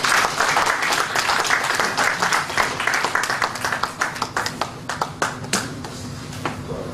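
Audience applauding, dense at first and thinning out to scattered single claps over the last few seconds.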